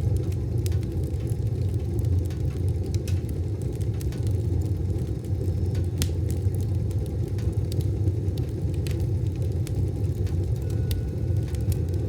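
Wood stove fire burning with a steady low rumble and scattered sharp crackles and pops, one louder pop about six seconds in.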